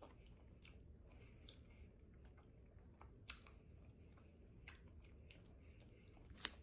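Faint chewing of fried catfish with scattered soft mouth clicks, a couple of them a little sharper about three seconds in and near the end.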